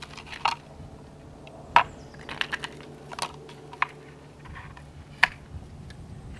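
Sharp metal clicks and clinks, about six spread irregularly with pauses between, the loudest a little under two seconds in, as camera dolly track rails are handled and fastened to their cross struts.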